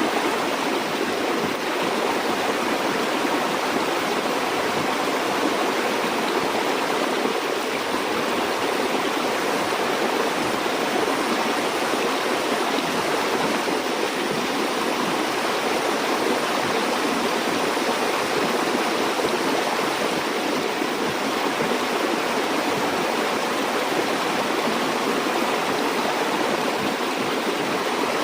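River water flowing steadily over rocks, an even rushing and babbling with no change in level.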